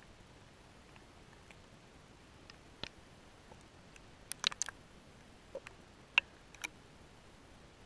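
Underwater river sound picked up through a GoPro's waterproof housing: a faint steady hiss with scattered sharp clicks and ticks, a quick cluster of them about halfway through and one more a little later.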